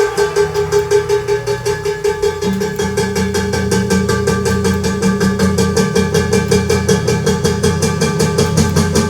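Instrumental jazz intro played back from a Revox B77 reel-to-reel tape deck: a fast, even chugging rhythm under steady held notes, with a lower bass note joining about two and a half seconds in.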